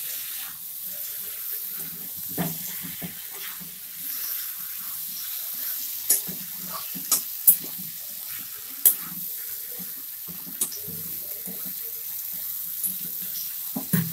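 Jackfruit and potato pieces sizzling in oil and spice paste in a metal kadai while being stirred with a spatula: a steady sizzle with scraping and several sharp clicks of the spatula against the pan. This is the sautéing (kosha) stage of the curry.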